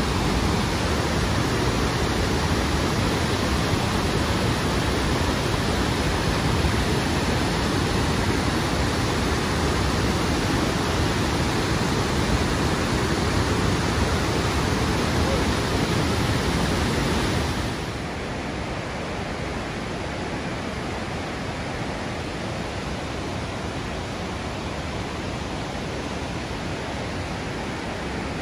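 Steady rush of a waterfall, drops to a softer level about 18 seconds in.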